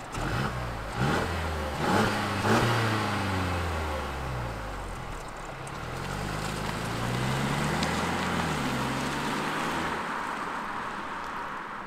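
Mercedes-Benz E200 Cabriolet's four-cylinder engine through its stock exhaust, heard from outside as the car accelerates away. The revs climb and drop back twice, over tyre noise. This is the standard factory sound, with the active sound module not adding anything.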